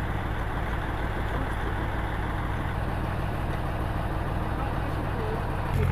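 An engine running steadily at idle, with a steady rushing noise over it.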